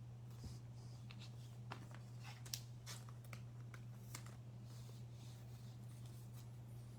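Faint, scattered clicks and rustles of trading cards and packaging being handled, over a steady low electrical hum.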